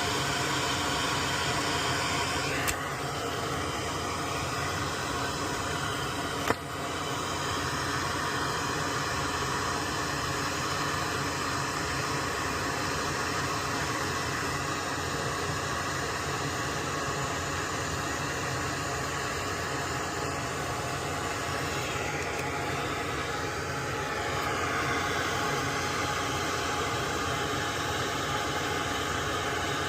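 Steady hiss of a blower running at the workbench, with two short sharp clicks, one about three seconds in and one about six and a half seconds in.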